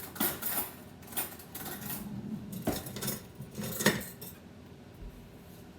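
Metal kitchen utensils and dishes clinking and clattering as they are handled: a string of separate knocks and clinks, the loudest about three and four seconds in.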